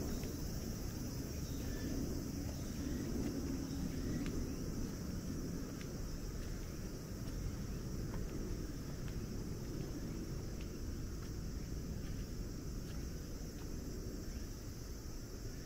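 A steady, high-pitched chorus of insects, over a low outdoor rumble.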